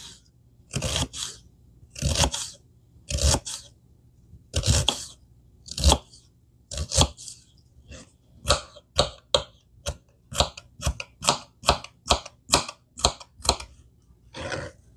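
Kitchen knife cutting a red onion on a plastic cutting board: sharp chops against the board, spaced about a second apart at first, then quicker at about three a second from about eight seconds in as the onion is minced.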